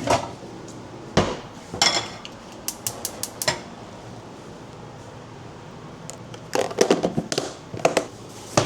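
Dishes and cooking utensils clattering in a kitchen: a run of clinks and knocks, some briefly ringing, then a pause of about three seconds, then a second cluster of clinks.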